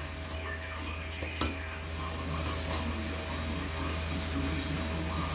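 Steady low mechanical hum with a single sharp tap about a second and a half in.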